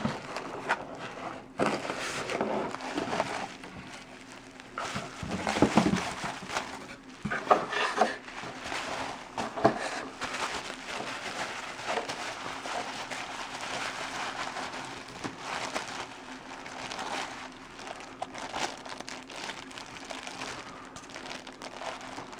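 Plastic packaging crinkling and rustling as it is handled and opened, with scattered small clicks and knocks.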